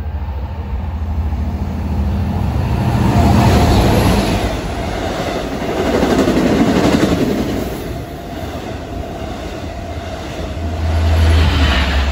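Long Island Rail Road train of bilevel coaches passing at speed along the platform, a continuous rumble of engine and wheel noise. It swells loudest a few seconds in as the train reaches the platform, and again near the end.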